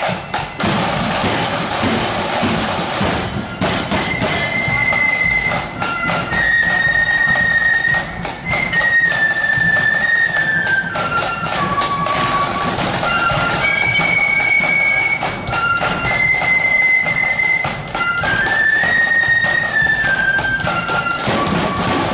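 Marching flute band on parade: the drums beat a steady march, and about four seconds in the flutes come in playing a tune over them.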